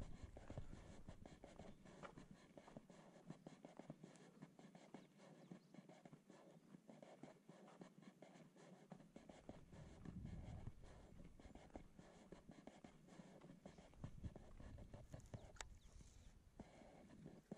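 Near silence with faint, irregular scuffing and scratching of footsteps on a dry dirt path while walking.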